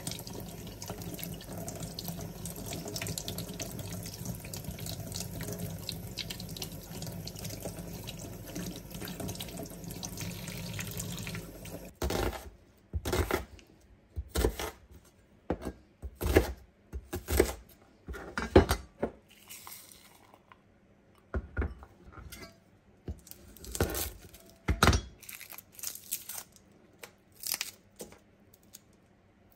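Tap water running steadily into a stainless steel sink while mushrooms are rinsed by hand; it stops abruptly about twelve seconds in. Then a chef's knife cuts garlic on a plastic cutting board, giving a series of separate sharp knocks with short pauses between them.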